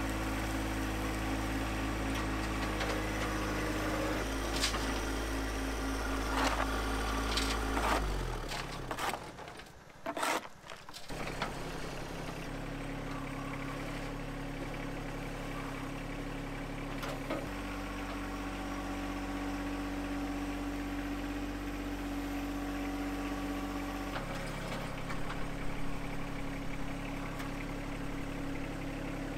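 John Deere 1025R sub-compact tractor's three-cylinder diesel engine running steadily while the front loader works dirt. The sound drops away briefly, with a few knocks, about eight seconds in. After that the engine note changes in steps a few times.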